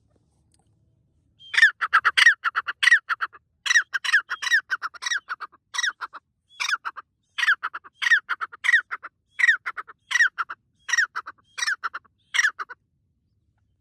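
Grey francolin (the 'white partridge' or teetar) calling loudly: a long run of harsh notes repeated in quick rhythmic phrases. The calls start about a second and a half in and stop shortly before the end.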